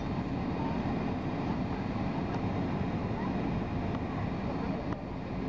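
Steady low rumble of a jet airliner taxiing, with engine and air noise heard from inside the passenger cabin.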